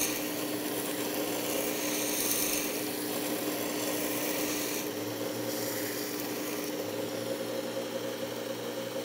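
Work Sharp Ken Onion Edition sharpener's blade grinding attachment running, its coarse 120-grit belt grinding the steel spine and tip of a paring knife: a steady motor hum under a rasping hiss. The rasp eases after about five seconds. This is the reshaping of a broken tip, ground down nearly to the edge bevel.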